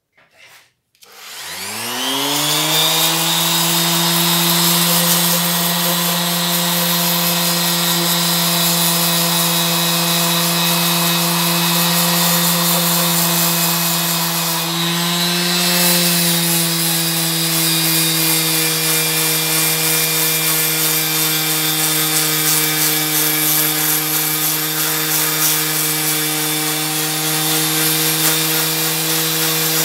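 Electric random orbital sander with an 80-grit disc, switched on after a couple of clicks and spinning up with a quickly rising whine, then running steadily as it sands a piece of wood.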